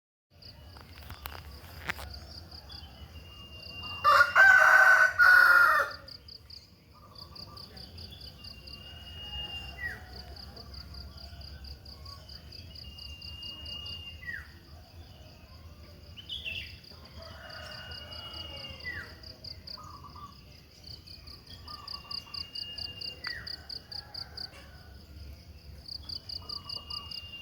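A wild songbird, the one called sirtu, repeats a high, steady whistled note followed by a short falling note about every five seconds, over a continuous fast-pulsing insect trill. A rooster crows loudly about four seconds in, and this is the loudest sound.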